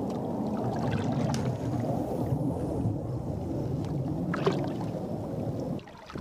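Water sloshing against the pontoons of a Classic Accessories Colorado XT kick boat, a steady rushing noise with a few faint ticks over it, which drops away near the end.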